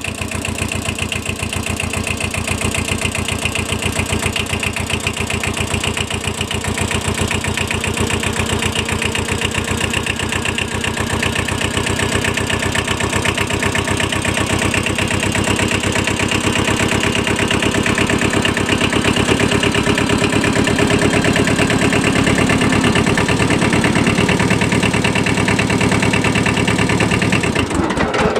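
Small Kubota 5001 compact tractor's diesel engine running with a steady, close-spaced firing beat, getting louder and working harder about halfway through.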